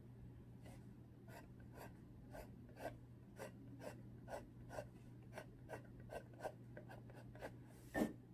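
Pencil drawing on canvas: a run of short, quick strokes, about two a second, as detail lines are added to the sketch. One louder knock near the end.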